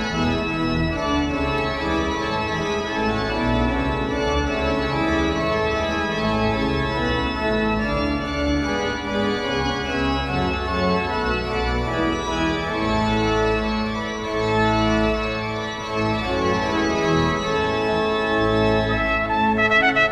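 Pipe organ playing slow, sustained chords with a deep bass.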